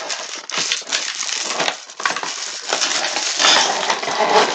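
Ornament packaging crinkling and crackling as an ornament is pulled out of its package, a continuous rustle that grows denser near the end.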